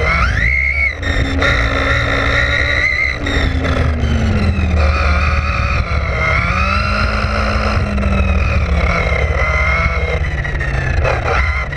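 Onboard sound of a Vaterra Glamis Uno RC buggy: its electric motor and drivetrain whine, rising sharply near the start and then falling and rising again with the throttle, over steady tyre and wind rumble.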